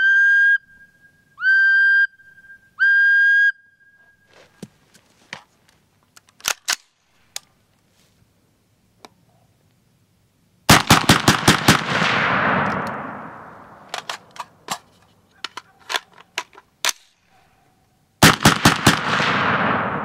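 A whistle blown in three short, steady blasts. Then, after a few small handling clicks, two rapid bursts of gunfire come about eight seconds apart, each about eight shots within a second, followed by a long echoing tail. The gunfire is the loudest sound.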